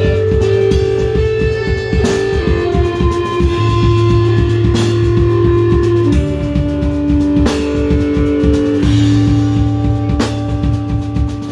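Live instrumental rock from two electric bass guitars and a drum kit, with no singing. The basses hold low notes that shift pitch every few seconds over a dense, steady drum beat with occasional cymbal crashes.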